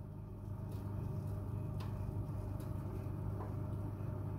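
Electric oven running with a steady low hum from its fan motor, with a few faint clicks.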